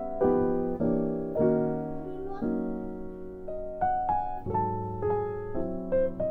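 Background music: a gentle piano melody over chords, a new note or chord about every half second.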